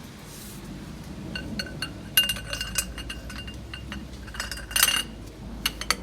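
Hand tools clinking and ringing against metal, with quick runs of sharp ticks, as a wrench works the just-loosened 24 mm drain bolt out of a Toyota AE86's differential.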